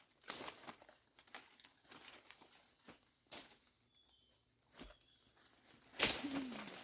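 Irregular soft footsteps and rustling, with a sharp knock about six seconds in.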